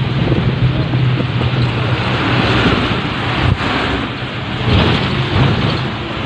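Steady rush of wind and road noise from a moving vehicle, over a constant low engine hum. A brief swell about five seconds in as something passes close by.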